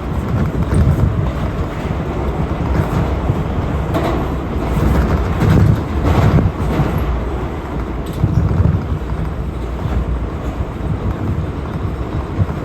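R179 subway train running at speed, heard from on board: a steady rumble of wheels on the rails with occasional clacks.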